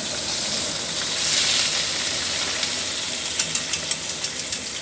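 Hot cooking pot sizzling and hissing, swelling louder about a second in, with a quick run of sharp clicks and pops in the second half.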